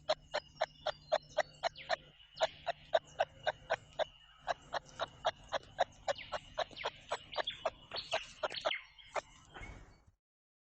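An animal giving a rapid series of short, sharp chirping calls, about four or five a second, with two brief pauses.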